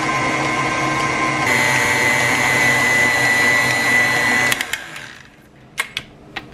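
Electric stand mixer running, its flat beater churning bakso meatball paste in a stainless steel bowl with a steady motor whine. About four and a half seconds in the motor is switched off and winds down, followed by a few light clicks.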